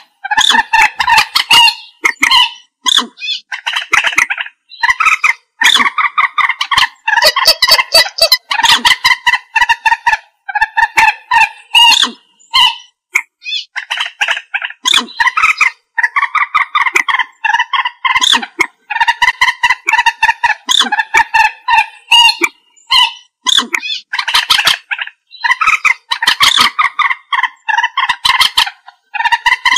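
Common moorhen calling: bouts of rapid, repeated short pitched notes broken by brief pauses, going on throughout.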